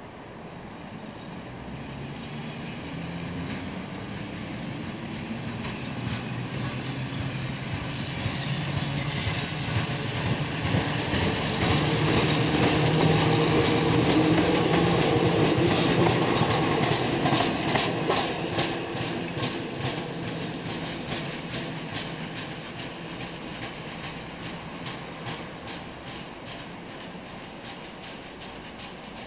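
Electric suburban train cars passing close by. A steady motor hum swells to a peak mid-way and fades as the train moves off, with a run of regular wheel clacks over the rail joints as it goes by.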